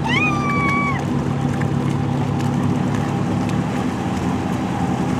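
Motorboat engine running steadily. In the first second there is a short high-pitched call that rises and then holds before stopping.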